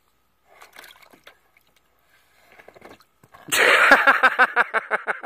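Water in a plastic kiddie pool: faint dabbling at first, then a sudden loud splash about three and a half seconds in as a toddler topples face-first into the water, followed by a quick run of splashing that fades out.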